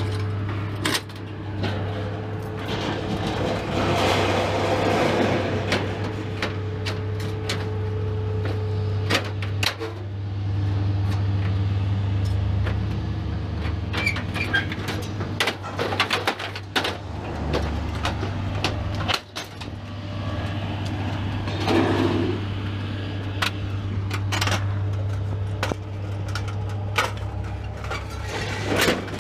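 Steady low machine hum with many scattered clicks and knocks.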